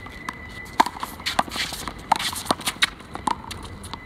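Handball rally on a concrete court. An irregular run of about a dozen sharp smacks as the small rubber ball is struck by hand, hits the wall and bounces. The smacks stop a little over three seconds in.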